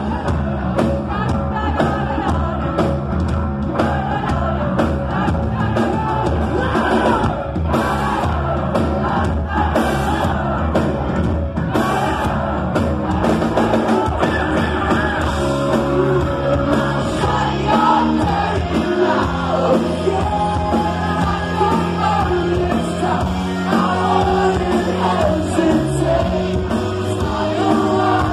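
Live rock band playing loudly, with a singer yelling the vocals over guitars, bass and drums, heard from within the crowd.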